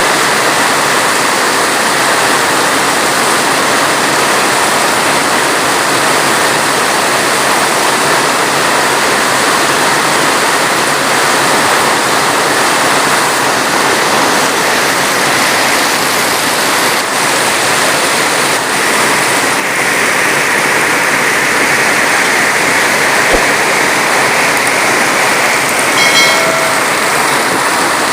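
Heavy rain falling steadily, an even unbroken hiss. About two seconds before the end a brief pitched tone sounds for around a second.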